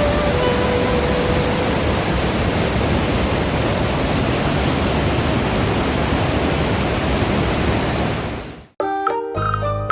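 Loud, steady rushing of a waterfall of glacial meltwater plunging through a narrow gorge, an even wash of white-water noise that fades out about eight and a half seconds in. Music starts just before the end.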